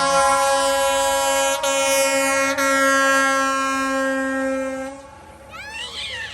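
Fire rescue truck's air horn sounding one long blast of about five seconds, its chord sagging slightly in pitch. Near the end the horn stops and a siren sweeps quickly up and down.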